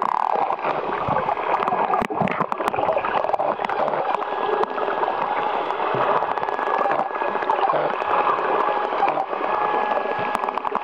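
Spinner dolphins whistling and clicking underwater: a dense chatter of overlapping whistles, one falling whistle at the very start, and scattered sharp clicks.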